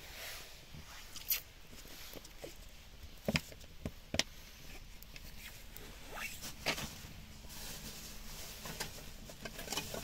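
Chopped onions frying in oil in a pan over a wood fire: a soft sizzle with scattered sharp crackles and pops.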